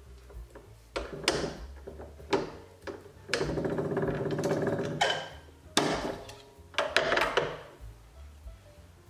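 Hand-cranked bench-top slip roll being worked: sharp metal clacks and clunks as the rolls and handle are handled, with a steady stretch of cranking for a couple of seconds in the middle.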